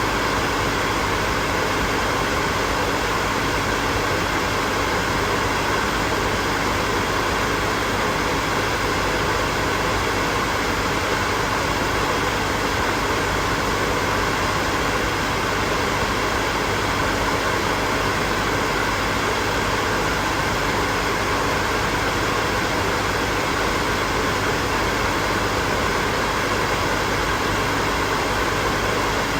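Electric hair dryer running continuously: a steady blowing whir with a faint motor hum and no change in speed.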